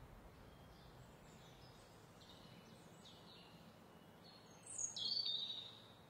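Faint birds chirping over a low outdoor hiss, with one louder, sharper call about five seconds in.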